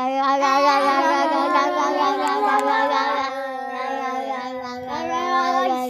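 A young child singing one long held note, the voice wavering slightly but keeping its pitch.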